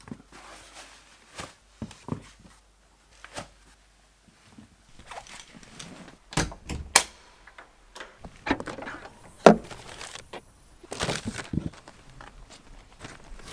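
Scattered knocks, thunks and rustles of someone getting ready to leave: sneakers being put on and a black fabric duffel bag being picked up and carried, with footsteps. The loudest knocks come about halfway through and again a few seconds later.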